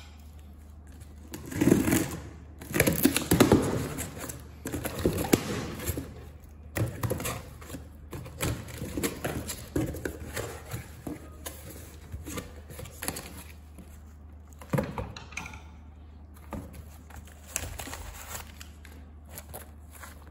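Taped cardboard box being cut and opened by hand: irregular scraping, rustling and knocking of cardboard flaps, loudest in the first few seconds, over a steady low hum.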